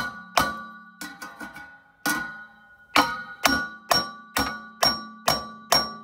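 A claw hammer strikes the steel hub of a Trane gas furnace's blower wheel about two blows a second, with a few lighter taps between about one and two seconds in. Each blow leaves a ringing tone from the metal wheel. The hub is stuck fast on the motor shaft and is being knocked along it to re-center the wheel in its housing, and it is barely moving.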